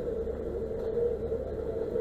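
A vehicle engine running steadily: a constant low rumble with a steady hum.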